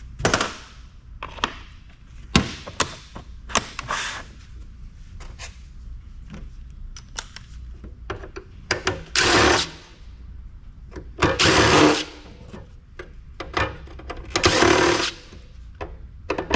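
Disassembly of a microfiche reader: scattered clicks and knocks of plastic and metal parts being handled, with several short bursts of a power tool, the loudest about halfway through and again near the end.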